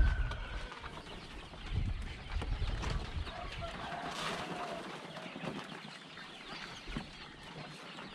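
Chickens clucking in the pen, with a loud thump at the start and a few softer bumps as the wooden cage and plastic feed tub are handled.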